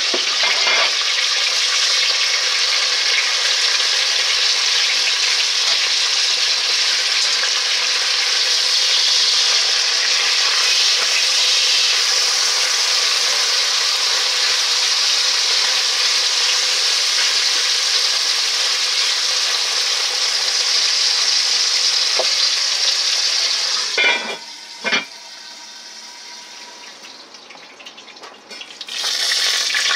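Thick-cut bacon frying in a cast iron pot, a loud, steady sizzle. About three-quarters of the way through come two sharp knocks, the sizzle drops away for a few seconds, and then it comes back.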